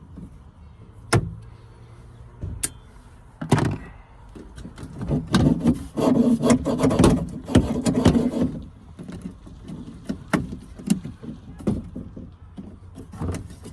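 Hand-tool work on a car door's interior handle fittings: sharp clicks and knocks, then a dense stretch of scraping and rattling in the middle, then scattered clicks again.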